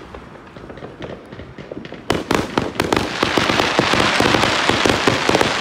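Fireworks going off: a few scattered pops at first, then, from about two seconds in, a dense rapid crackling of many small sharp reports that grows louder and keeps up.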